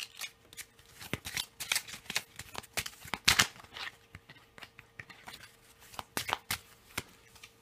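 A deck of game cards being shuffled and handled by hand: a run of irregular short snaps and flicks of card stock.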